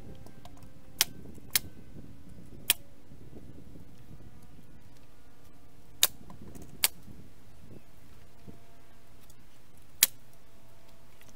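Pneumatic framing nailer driving 3½-inch nails into pallet wood: six sharp shots at uneven intervals, three in the first few seconds, two close together around the middle, and one near the end.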